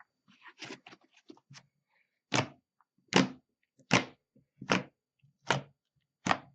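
Hands poking and squeezing slime mixed with clay, making squishy popping sounds. A few soft ones come first, then six loud ones at an even pace of a little over one a second.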